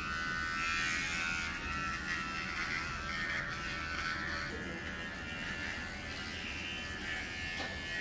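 Cordless electric pet clipper running with a steady buzz.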